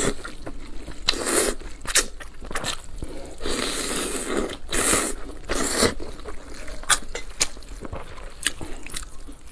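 Close-miked eating sounds: irregular wet chewing and slurping, broken by many sharp mouth-smacking clicks.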